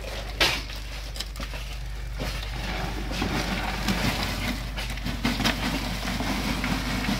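A plastic bucket knocks down onto a stair form about half a second in. From about two seconds in, wet gravelly concrete mix scrapes and slides out as the bucket is tipped, a gritty sound that grows louder toward the end.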